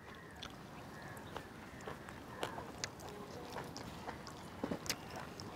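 Faint eating sounds: irregular small clicks and smacks of someone chewing and pulling apart grilled turkey meat.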